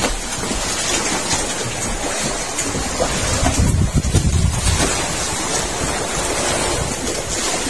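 Wind buffeting the microphone over open-sea waves slapping around a small outrigger fishing boat, with a louder low rumble about halfway through.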